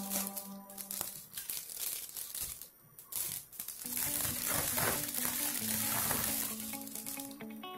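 Clear plastic wrapping crinkling and rustling as it is pulled open by hand, over background music that fades after the start and comes back about halfway through.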